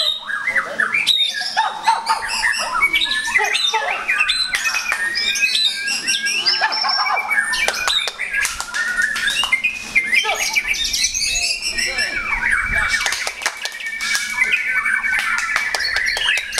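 Several white-rumped shamas singing at once, a dense tangle of loud whistles, trills and harsh squawking notes. A long steady whistle comes in about two-thirds of the way through.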